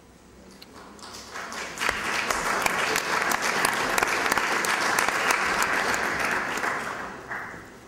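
Audience applauding: the clapping builds up over about the first two seconds, holds steady, and fades out near the end.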